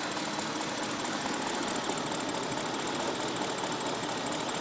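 BMW 550i V8 engine running steadily with a fast even pulsing, while the engine has a misfire.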